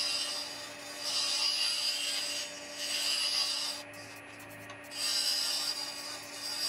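A negative rake scraper shaving a spinning Shedua (ovangkol) pepper-mill blank on a lathe: a scraping hiss in several passes with brief pauses, the longest about four seconds in, over the lathe's steady hum.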